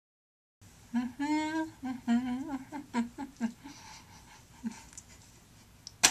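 A woman humming a few short notes of a wordless tune, one of them held with a wavering pitch, after a moment of dead silence. A sharp click comes right at the end.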